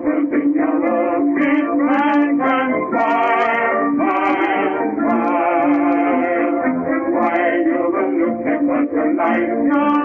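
Background music: a melody with a wavering vibrato over held low notes, with a narrow, thin sound that stops short of the high treble.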